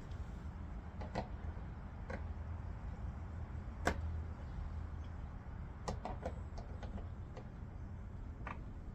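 Scattered small clicks and taps of needle-nose pliers working a spring clamp onto a motorcycle fuel line, the sharpest about four seconds in and a quick cluster around six to seven seconds, over a faint steady low hum.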